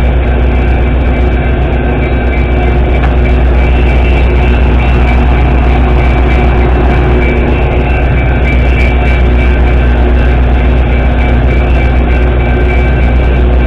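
Metra diesel locomotives idling at the head of a stopped commuter train: a loud, steady, deep engine drone with a steady high whine above it.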